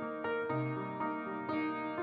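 Upright piano played solo: soft held chords with notes struck every half second or so, the bass changing about a quarter of the way in.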